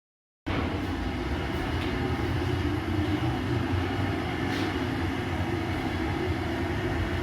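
Steady low mechanical rumble and hum, even throughout, with a faint click about four and a half seconds in.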